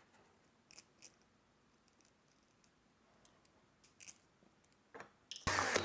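Light clicks and ticks of small metal parts and tools being handled during lens disassembly. Near the end a loud, steady motor-like sound starts abruptly.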